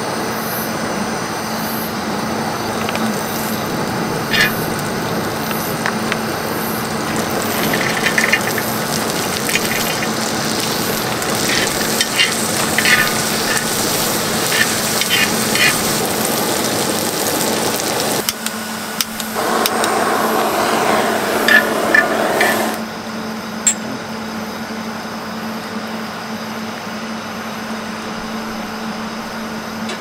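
Food sizzling while it cooks, with light clicks and taps of utensils, over a steady low hum. The sizzle changes character for a few seconds in the second half, then drops away suddenly about three-quarters of the way through, leaving the hum.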